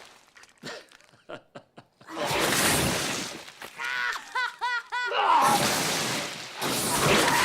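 A few soft gulps as diet soda is chugged from a bottle. Then come stretches of crackling noise, and about four seconds in a quick run of five or six short high-pitched pulses.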